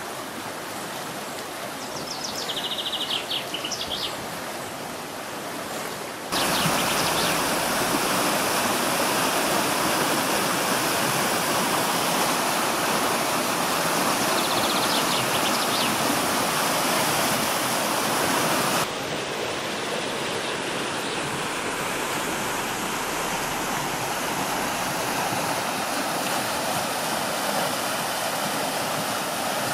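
Muddy stream in flood after heavy storm rain, rushing fast and churning over rapids in a steady roar of water. It gets louder about six seconds in and drops back a little about two-thirds of the way through.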